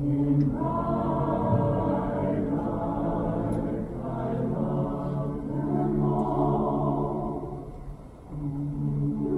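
A choir singing held chords in long phrases, one phrase ending about eight seconds in and a new chord entering just after.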